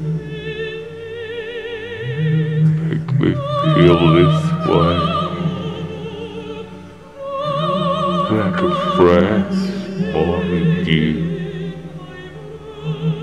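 Operatic singing in long held notes with wide vibrato, some very high, over a steady low sustained accompaniment.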